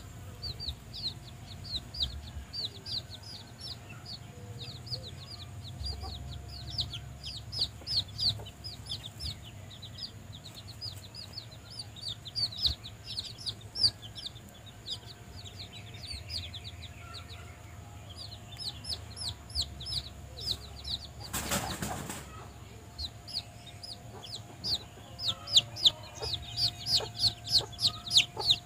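Domestic chicks peeping almost without pause: quick, high, downward-slurred peeps, several a second, loudest near the end. About two-thirds of the way through comes a brief flutter of wings.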